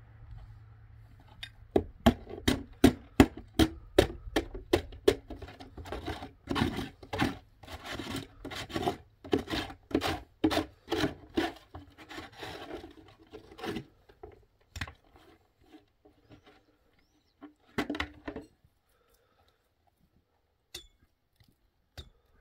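Rapid repeated knocking, about three sharp strikes a second, starting about two seconds in and thinning out after about fourteen seconds, with a few single knocks near the end.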